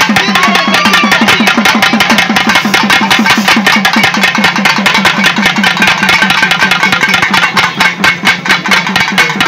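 Pambai, the Tamil pair of stick-beaten folk drums, played in a fast, steady beat, each low stroke sliding down slightly in pitch.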